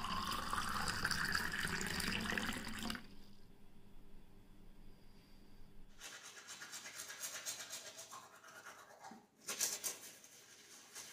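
Water poured into a glass tumbler, the pitch of the stream rising as the glass fills, stopping about three seconds in. From about six seconds in, a manual toothbrush scrubbing teeth, louder briefly near the end.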